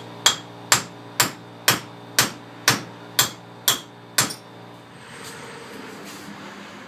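Big hammer driving a replacement wheel stud into a Land Rover Series 3 wheel hub: about nine hard metal-on-metal strikes, roughly two a second, several with a short metallic ring, stopping about four seconds in.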